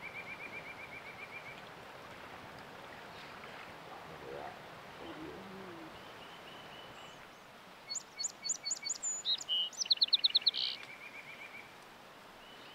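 Songbirds singing over the steady rush of a river: a quick trill at the start and again near the end, and a run of high chirping notes that is loudest about ten seconds in.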